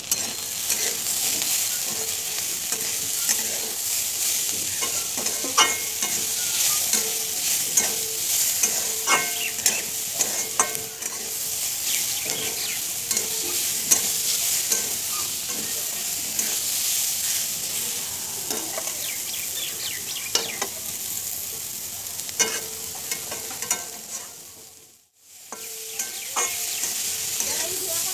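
Shredded cabbage and onion sizzling as they fry in a metal kadhai, stirred and scraped with a flat metal spatula that clinks and scrapes against the pan many times. The sound drops away for about a second near the end, then the sizzling and stirring resume.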